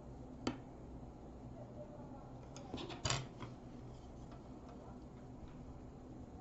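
A few light clicks and knocks of flat bamboo skewers being handled and set down onto an MDF disc and paper: one sharp click about half a second in, then a quick cluster of clicks halfway through, over a low steady hum.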